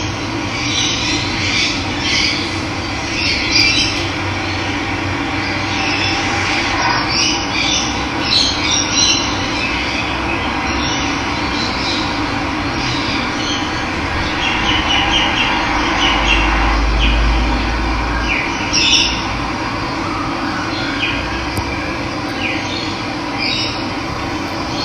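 Steady rush of running water with wild birds calling at scattered moments over it. A brief low rumble comes past the middle.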